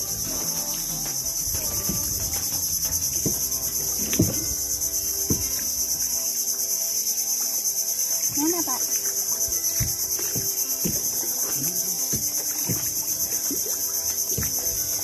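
Steady high-pitched chorus of insects in the riverside trees. Scattered light knocks and clicks sound over it.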